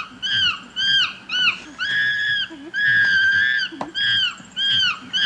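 Young chimpanzee screaming in a temper tantrum: a rapid string of high, arching screams about two a second, two of them held longer in the middle.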